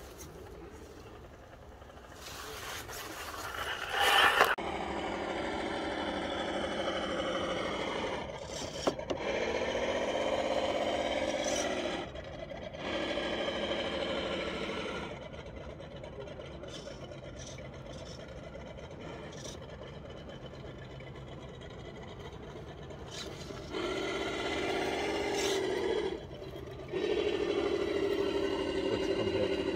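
Electric RC crawler's motor and gearbox whining in several bursts as it is driven, the pitch rising and falling with throttle.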